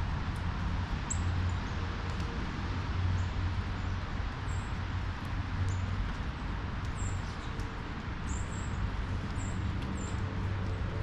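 Small birds chirping, short high notes repeated every half second or so, over a steady low outdoor rumble.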